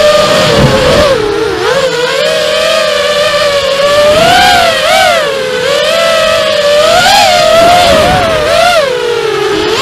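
Whine of a 250-size FPV racing quadcopter's RCX 2206 2250 KV brushless motors spinning 5-inch three-blade props, heard from its onboard camera. The pitch rises and falls over and over with the throttle, with several quick swells in the second half.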